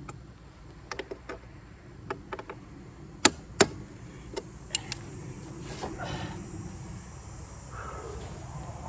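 Tools knocking and clinking against sawmill parts while they are being taken apart. Scattered light knocks, with two sharp, loud strikes close together about three seconds in.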